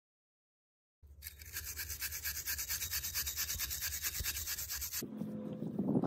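Hand wire brush scrubbing rusty bolts on a van's rear brake and hub assembly: a fast, rhythmic rasping that starts about a second in and stops about five seconds in.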